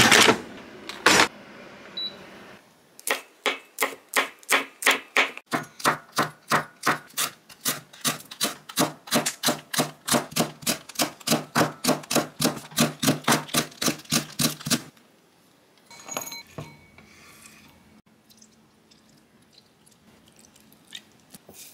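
Kitchen knife chopping on a cutting board in a steady rhythm, about three strokes a second, for about twelve seconds. Two louder knocks come just before it starts, and a few faint clinks follow after it stops.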